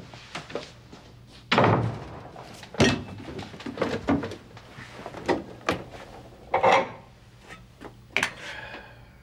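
A run of household knocks and clatters: a door banging shut, then kitchen things being handled at a stove, about eight separate thumps and clanks in all.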